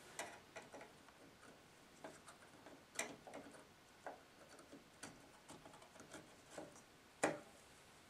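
Faint clicks and taps of a Corsair XMS3 DDR3 RAM stick being handled and lined up in a motherboard memory slot, with a sharper click about three seconds in and another near the end.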